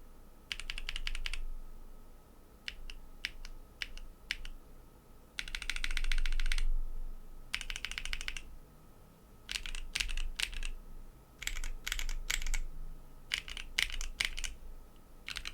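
Mechanical keyboard with lubed Tecsee Coral tactile switches on an FR4 plate and DCS-profile double-shot ABS keycaps being typed on, in quick runs of keystrokes broken by short pauses.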